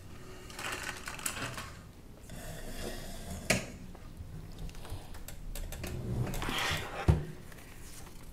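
Rustling and light clatter as a person with a folding walker settles in at a table and chair, with two sharp knocks about three and a half and seven seconds in.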